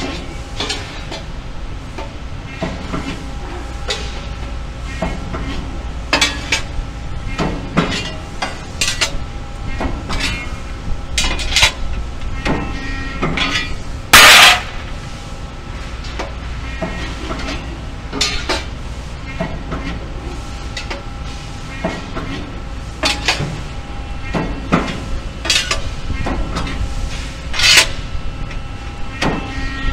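Sheet-metal parts clanking and clattering as they are handled and bent at a running press brake, over the machine's steady hum. Short metal knocks come every second or two, with one much louder clatter about halfway through.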